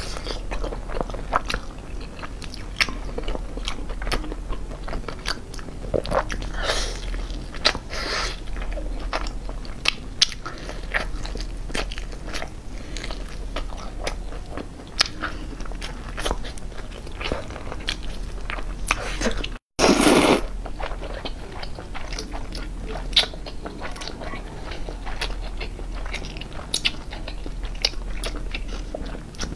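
Crunchy bites and chewing of fried chicken, picked up close by a clip-on microphone: a dense run of irregular crackles and mouth sounds. About two-thirds through the sound drops out for an instant, then a loud burst follows for about a second.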